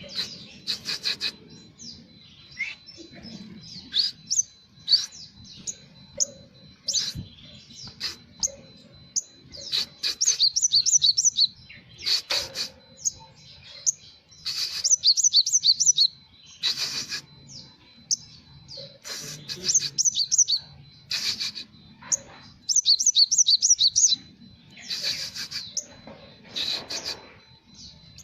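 Olive-backed sunbird singing in rapid, high, chirping phrases and fast trills that come in bursts every second or two, its song filled with notes copied from the Java sparrow.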